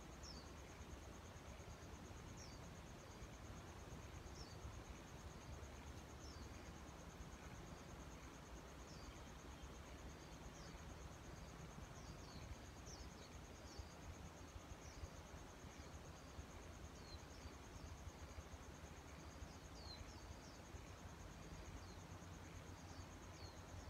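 Faint outdoor insect chorus, a steady high pulsing trill, with short high bird chirps that fall in pitch, coming every second or two.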